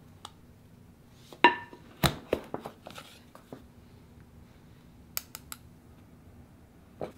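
A metal cocoa powder tin being handled and opened: a sharp knock with a short metallic ring, then a run of clicks and a brief scrape. Later come three quick sharp clicks and a softer knock.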